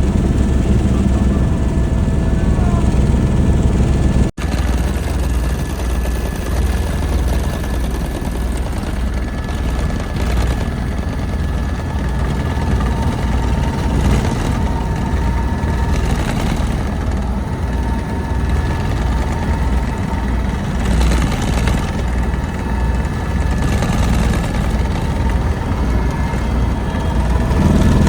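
Helicopter in flight, its rotor and engine running steadily with a low, pulsing beat. The sound cuts out for an instant about four seconds in.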